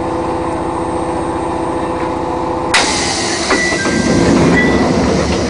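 Chichibu Railway 1000 series electric train (ex-JNR 101 series). It first gives a steady hum of several tones over a rapid low pulsing. About 2.7 seconds in, the sound changes abruptly to a louder, noisier rumble with a few short high tones.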